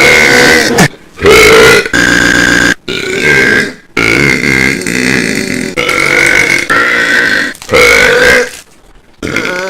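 A man belching loudly, one long burp after another with brief pauses between them, the audio boosted to the point of distortion.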